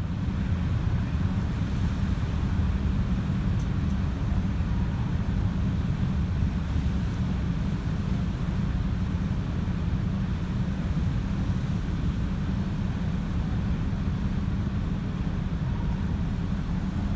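Steady low hum of a car ferry's engine under way, mixed with wind and water noise.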